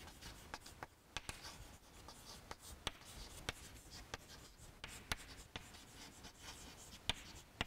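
Chalk writing on a chalkboard: faint scraping strokes broken by irregular sharp taps as each letter is formed.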